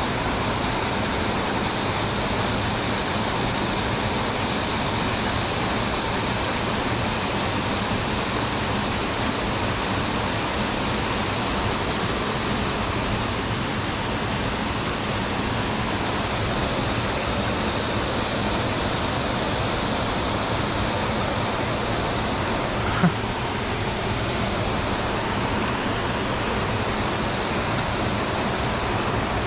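Steady rush of fast river current and a small dam spillway pouring into the pool, heard from mid-stream. A single sharp click about 23 seconds in.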